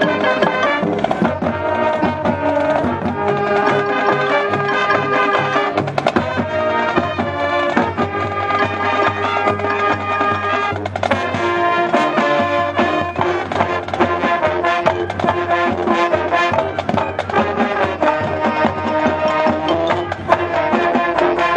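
High school marching band playing its field show live: brass holding sustained chords over the drumline, the harmony shifting every second or two.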